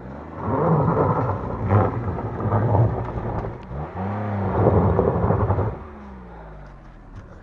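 A car engine revving hard as it tries to climb a steep off-road slope, its pitch rising and falling twice under a rough rumble of spinning tyres and loose stones, then the revs dropping away about six seconds in.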